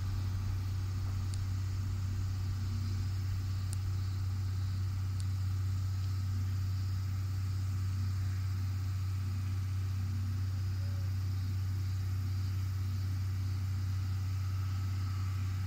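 Steady low hum from electric trains standing at a station platform, unchanging throughout, with a few faint ticks in the first few seconds.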